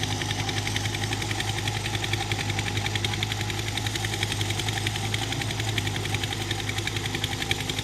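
Excavator's diesel engine running steadily with a fast, even throb.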